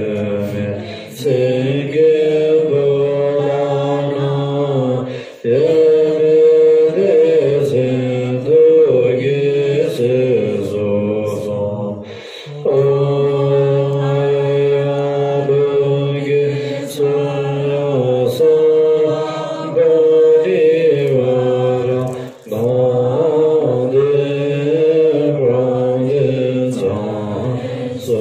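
Women's voices chanting Tibetan Buddhist prayers together in a steady, sung recitation on a few sustained notes. The chant breaks off briefly for breath about five, twelve and twenty-two seconds in.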